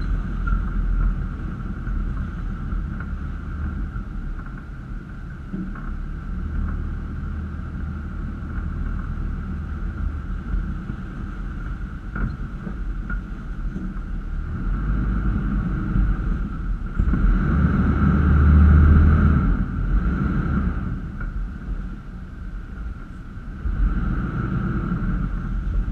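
Toyota Land Cruiser FZJ80's 4.5-litre inline-six petrol engine running at low speed on a rough dirt trail, a steady low rumble. It swells louder for a few seconds about two-thirds of the way through and again near the end.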